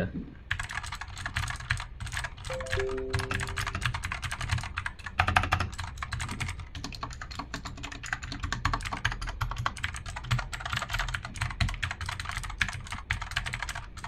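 Fast typing on a Fantech Maxfit61 60% mechanical keyboard fitted with Outemu blue clicky switches: a dense, continuous run of sharp key clicks that starts about half a second in.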